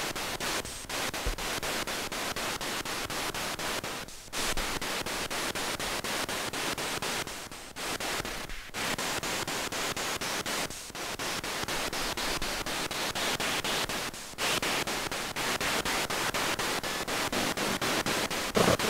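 Hissing radio static from an EVP ghost-box device, chopped into short pulses about five times a second, with a few brief dropouts.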